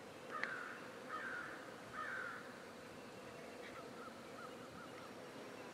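A crow cawing three times, about a second apart, then a short run of quick chirps from a smaller bird. Underneath is the faint steady hum of honeybees around the broken hive.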